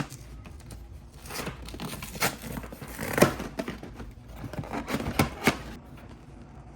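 Packaging of a trading-card collection box being torn open and crinkled by hand: a run of sharp crackles and snaps, loudest about three seconds in and again near five seconds, stopping shortly before the end.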